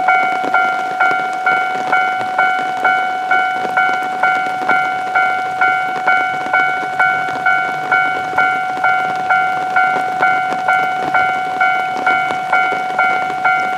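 Railway level-crossing warning bell ringing an electronic 'kan-kan' tone, about two strikes a second without a break, over a steady hiss of heavy rain.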